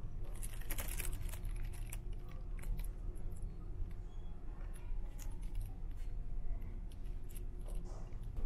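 Steady low drone of the ferry's machinery inside the ship, with a flurry of light clicks and jingles from about half a second to a second and a half in and a few scattered clicks after.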